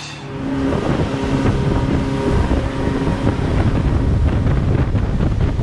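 Power boat running fast: a rumbling engine drone with the rush of churning wake water, and wind buffeting the microphone.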